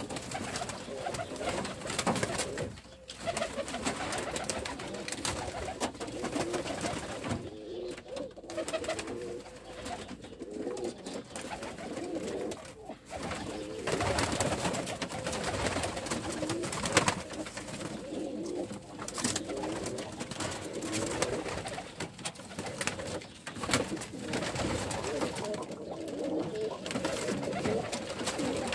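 A loft full of domestic Ödemiş dolapçı pigeons cooing continuously, many birds overlapping, with occasional wing flaps, in a small enclosed loft.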